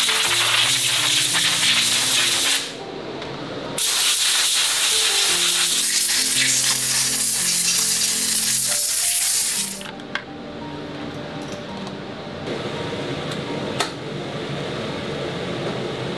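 Compressed-air blow gun hissing in two long blasts, with a one-second break about three seconds in; the air cuts off near ten seconds, leaving background music and a couple of sharp clicks.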